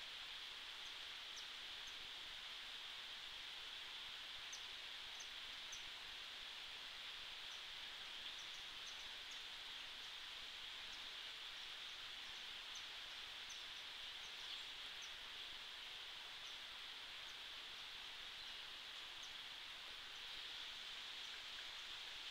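Hummingbirds giving short, high chip notes, scattered irregularly, over a faint steady high-pitched hiss.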